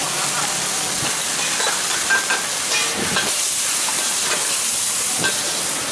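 Holy basil stir-fry with crispy pork sizzling in a wok over high heat: a steady hiss of frying sauce, with a few light scrapes of the metal spatula against the wok as it is stirred.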